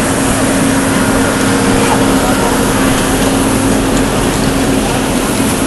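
Steady, loud ambience of a busy city square: a continuous rush of noise with faint crowd voices and a low steady hum.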